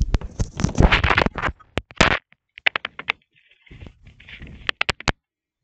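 Improvised drum roll: about two seconds of rapid tapping on a hard surface, then scattered single taps in small clusters.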